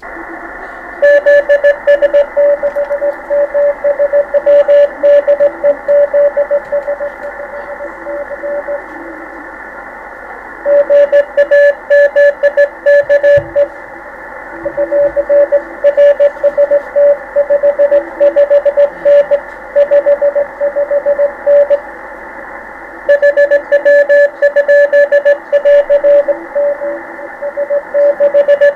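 Morse code (CW) from an amateur radio transceiver: a keyed tone beeping out dots and dashes over steady band hiss, with a fainter second signal at a lower pitch. The keying breaks off briefly twice, leaving only the hiss.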